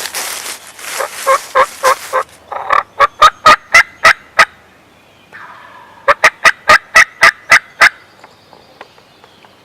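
Three runs of loud turkey yelps, sharp evenly spaced notes about four a second, the first run over a rustle of dry leaves being scratched.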